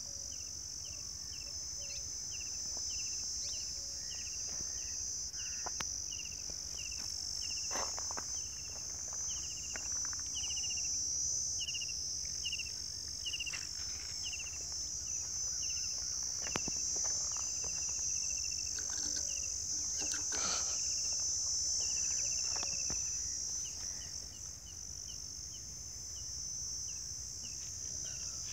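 Steady, high-pitched insect chorus. A second call of short chirps repeats about twice a second through the first half and more sparsely later. A few knocks sound between them.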